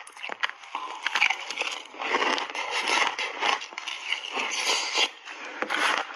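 Close-miked crunching of shaved ice coated in matcha milk powder, chewed in big bites: a few sharp crunches at first, then dense, continuous crunching from about two seconds in.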